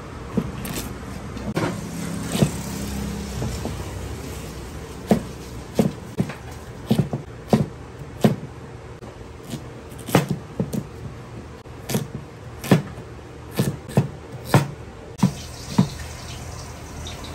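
Cleaver chopping potato and carrot on a wooden chopping board: sharp, irregular knocks of the blade striking the board, one or two a second, over a steady background hiss.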